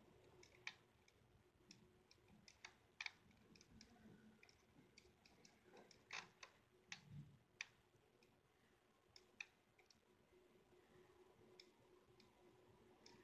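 Faint, irregular clicks from drawing on a laptop, coming singly and in small clusters, over a faint steady hum.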